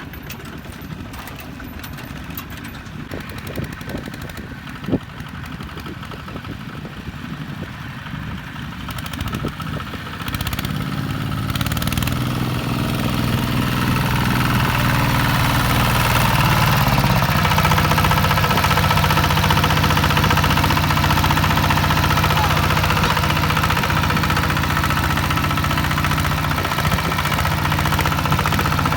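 Tractor engine running: quieter at first with scattered knocks, then growing louder about ten seconds in and running steadily and loud for the rest.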